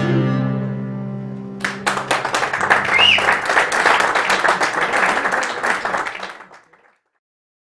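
A live band's final chord on acoustic guitars and keyboard rings out, then about a second and a half in the audience breaks into applause, with a short whistle about three seconds in. The applause fades out near the end.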